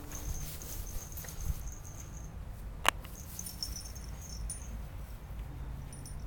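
A small dog running over dry, matted grass: faint patter and rustle over a low steady rumble. Thin high chirps come and go, and one sharp click sounds nearly three seconds in.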